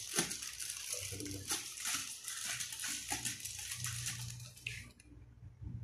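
Clear plastic packaging bag crinkling and rustling as toilet flush parts are handled and pulled out of it, in quick irregular crackles that stop about five seconds in.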